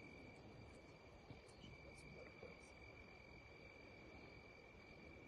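Faint night insect chorus: a steady high-pitched drone with a few faint ticks over it.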